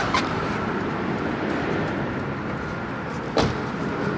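Steady outdoor street noise with a low rumble like distant traffic, broken by two short sharp clicks, one just after the start and one about three and a half seconds in.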